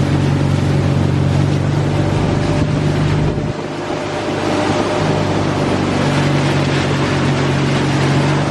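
An engine running steadily under a broad rushing noise, with a brief drop in level about three seconds in.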